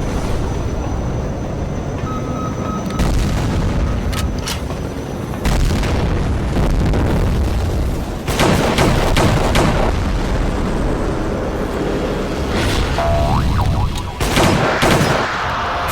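A dense mix of action sound effects: heavy booms and rapid gunfire-like bursts over background music, with strong hits about 3, 5, 8 and 14 seconds in.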